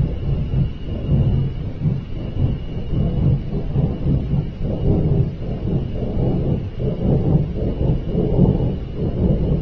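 A loud, low rumbling noise of unknown origin that surges and fades in waves, sounding like a giant flame, with a faint steady high tone above it.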